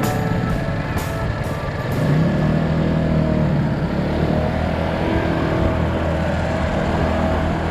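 Tao Tao 50cc scooter engine running, its pitch rising about two seconds in as it picks up speed, over a steady noisy rush.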